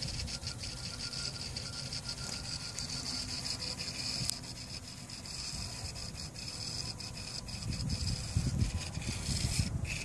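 Aerosol tyre-sealant can hissing steadily as it pushes propellant and foam sealant through its hose into a flat tyre, with a low rumbling that grows near the end.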